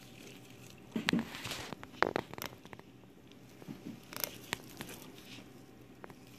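Fillet knife slicing a crappie fillet away from the rib cage, making scratchy scrapes and small clicks as the blade rides over the rib bones. There is a cluster of them about a second in and a few more near four seconds.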